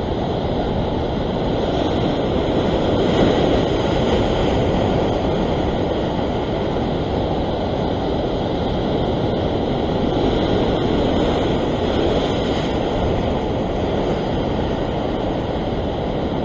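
Ocean swell surging and breaking over a rock ledge, a steady wash of whitewater that swells a little about three seconds in and again around ten seconds.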